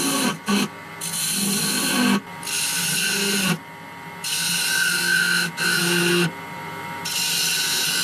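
Lathe tool scraping decorative grooves into a spinning wooden handle on a wood lathe: a series of about six cuts, each up to a second or so long, with short pauses between, over the steady hum of the lathe.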